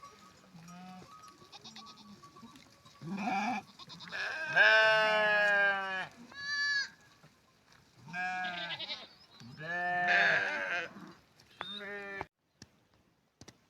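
Sheep bleating: a series of about six quavering bleats of different lengths, the longest and loudest in the middle. The sound cuts off abruptly near the end.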